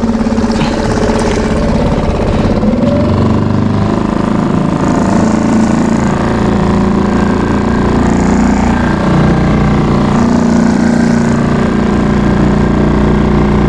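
Outboard motor running steadily, just started on the choke.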